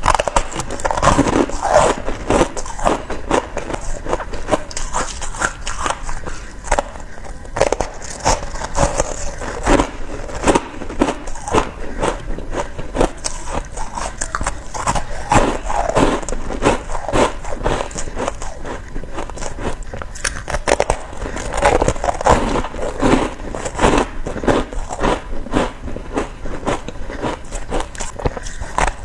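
Close-miked biting and chewing of shaved ice: continuous crisp crunching made of many sharp cracks, with louder clusters of bites every few seconds.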